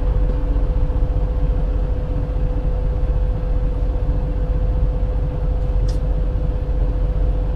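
Semi truck's diesel engine running inside the cab as the bobtail tractor coasts slowly: a steady low rumble with a steady hum on top. A single brief click about six seconds in.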